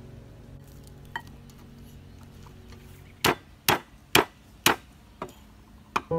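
A knife chopping through lemongrass stalks on a thick wooden chopping board: four sharp chops about two a second, then two lighter ones.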